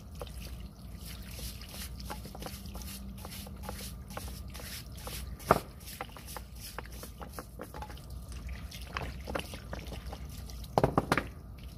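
Water from a garden hose trickling and dripping onto wet rocks and paving, with many small clicks and knocks of stones being handled. There is a sharper knock about five and a half seconds in and a quick cluster of knocks near the end.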